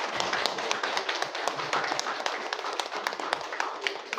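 Audience applauding, many hands clapping at once, thinning out near the end.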